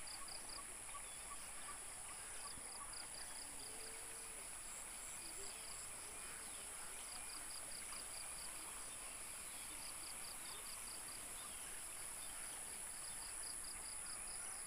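Insects in the grass and fields: a steady high-pitched drone with short runs of rapid chirps repeating every couple of seconds.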